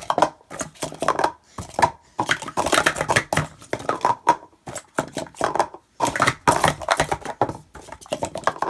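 Speed Stacks sport-stacking cups clacking and sliding as they are rapidly stacked up and down on a stacking mat in 3-6-3 runs: fast bursts of plastic-on-plastic clatter with short pauses between attempts.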